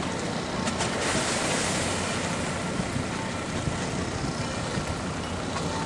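Boat engines running slowly in a harbour: a steady low hum under churning, washing water noise, with a brief swell of hiss about a second in.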